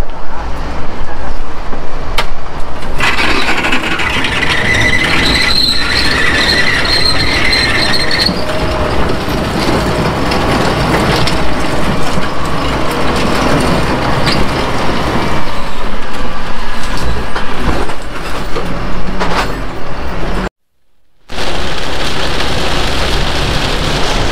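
Wheeled excavator's diesel engine running under load as it shoves a wrecked car body, with a steady high whine for several seconds early on. After a brief cut near the end comes steady road and rain noise inside a van cabin in a heavy downpour.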